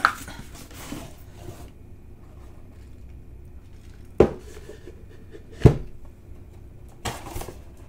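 Cardboard box scraping as it is slid out of its printed paper sleeve, then two sharp knocks of cardboard on the table about a second and a half apart, the second louder, and a little more handling noise near the end.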